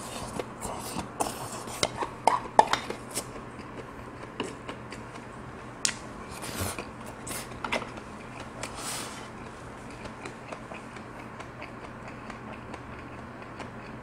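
Close-up eating sounds: sharp clicks of chopsticks against a stainless steel bowl and a bite of bibimbap being taken and chewed, busiest in the first few seconds. After that come a few more chewing sounds and then only sparse soft clicks.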